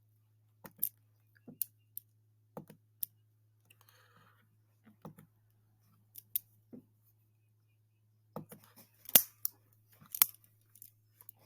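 Scattered small clicks and taps, a few isolated ones in the first three seconds and a busier run of them about eight to ten seconds in, over a faint steady hum.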